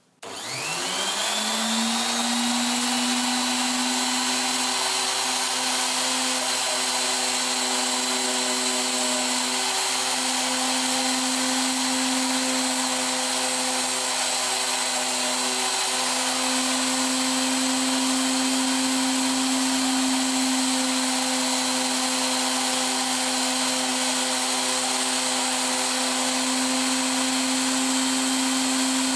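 Tool post grinder starting up. Its motor and wheel spindle spin up with a rising whine over the first couple of seconds, then run on steadily at full speed.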